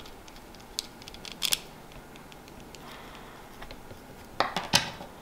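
Small metal mounting pins and plastic parts of a Hyper 212 CPU cooler backplate clicking as they are handled and fitted together by hand: a few light clicks about a second and a half in, and a louder cluster of clicks near the end.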